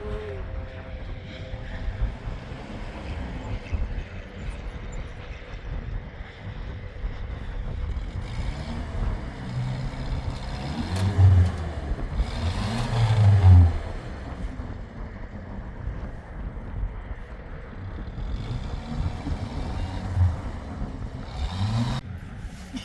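A vehicle engine running with a steady low rumble, surging louder twice near the middle, around 11 and 13 seconds in.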